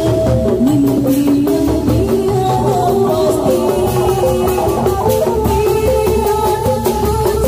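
Loud Sundanese procession music: kendang barrel drums beating steadily under a wavering, gliding melody line, played through a large loudspeaker stack.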